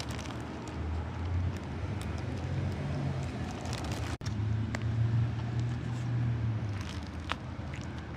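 A steady low rumble that swells twice, with a few faint clicks and rustles.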